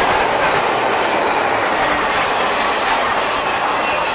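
Intermodal freight train's cars rolling past, carrying highway trailers and double-stacked containers: a steady wheel-on-rail rumble and rattle.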